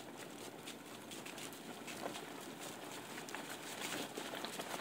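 Team of husky-type sled dogs trotting in harness on a leaf-strewn road: a quick, irregular patter of paws and claws over a steady hiss.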